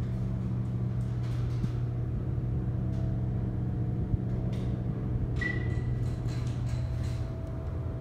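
1984 Dover elevator running: a steady low electric hum while the car travels, dying away shortly before the end. A short high beep sounds about five and a half seconds in.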